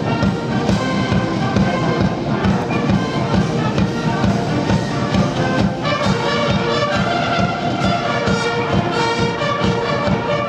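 A massed military band of brass and bugles, with bass drum, playing a march: trombones, euphoniums and bugles over a steady drum beat.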